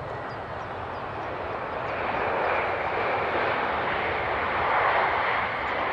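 Jet aircraft engine noise: a steady rushing sound that grows louder about two seconds in and holds.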